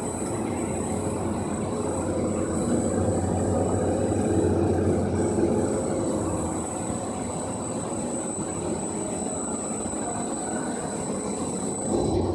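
Dog-treat snack extruder line running, with powdered feed being fed into its hopper: a steady mechanical running noise with a thin, steady high whine over it.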